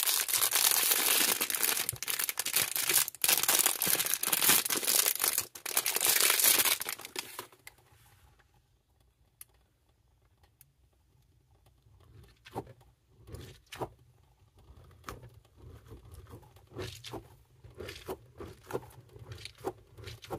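Clear plastic bag crinkling and tearing for about seven seconds as a water-bead snail squishy is unwrapped, then much quieter, scattered soft squishing sounds as the squishy is squeezed in the hand.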